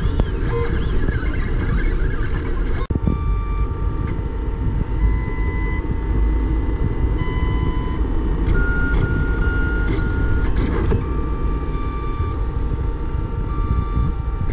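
Lulzbot Mini 3D printer at work: its stepper motors whine in steady tones that jump to new pitches every second or two as the print head moves, over a steady low rumble.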